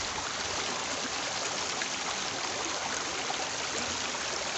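Shallow mountain stream running fast over rocks, a steady rushing and splashing of water.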